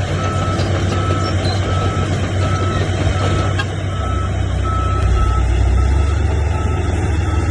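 Heavy diesel earthmoving machine running with its reversing alarm beeping steadily, about one and a half beeps a second. The engine's low rumble grows heavier about halfway through as it takes more load.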